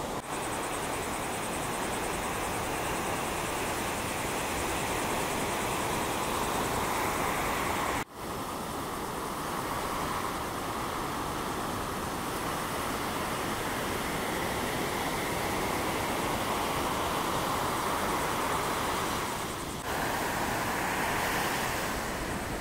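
Ocean surf: a steady rush of breaking waves and whitewater that slowly swells and eases, with wind. The sound cuts out for a moment about eight seconds in and dips briefly near the end.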